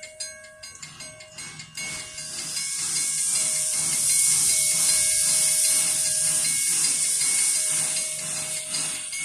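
Puffing Billy narrow-gauge steam locomotive venting steam: a loud hiss that swells up about two seconds in and holds, with a regular pulsing underneath.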